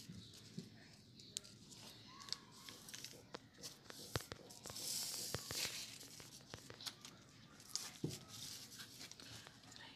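Soft rustling of hair as fingers part it and pull nits along the strands, with scattered small fingernail clicks; the rustling swells for a moment about five seconds in.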